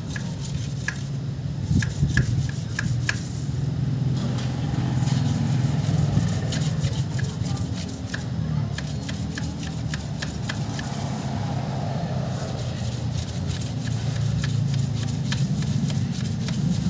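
Thin wire rod rasping and clicking against the metal tubes of a radiator core as it is jabbed in and out to clear clogged passages, in quick uneven strokes. A steady low rumble runs underneath.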